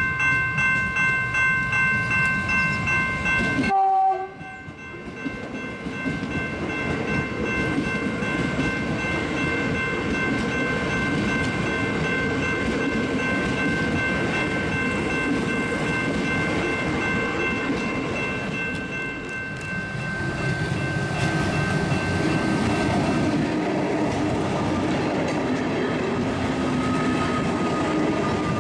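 Melbourne suburban electric trains running past one after another: wheel-on-rail rumble with a steady high whine. For the first few seconds the whine comes with a fast regular beat of about three a second. A brief two-note tone sounds at a cut about four seconds in. Near the end it grows louder and rougher as a closer train passes.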